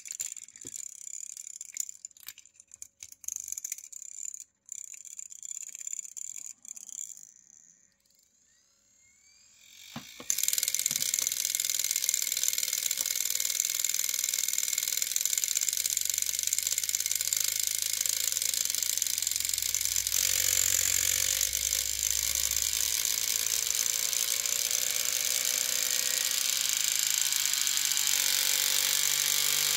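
Floppy drive's brushless spindle motor, overvolted on a hobby ESC, spinning far above its normal 300 RPM. For the first several seconds there are scattered clicks and a faint high whine; about ten seconds in a loud steady whir starts, its whine climbing slowly in pitch as the supply voltage and speed are raised.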